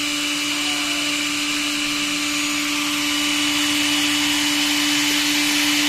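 Makita DDF458 18V cordless drill's brushed motor running with no load at a constant speed: a steady whine, checking the drill after its carbon brushes and brush holder were replaced.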